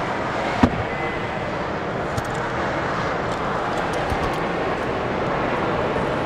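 Steady rushing background noise, with one sharp knock about half a second in and a few faint ticks later, as a metal specimen-cabinet drawer is shut and the cabinet is handled.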